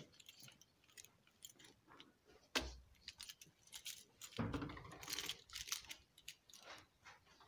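Handling noise from a handheld camera being swung about: rubbing and rustling with scattered clicks, a sharp knock about two and a half seconds in, and a longer stretch of rustling past the middle.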